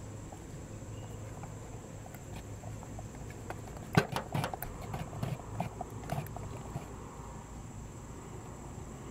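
Wooden mallet handle stirring thick, separated marine paint in a metal can. It knocks and scrapes against the can in a cluster of sharp clicks starting about four seconds in, the loudest about four seconds in. A steady high insect drone is heard throughout.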